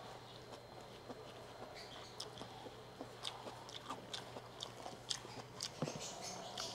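Faint chewing of a mouthful of sautéed bamboo shoots and rice, with scattered soft irregular clicks, over a low steady hum.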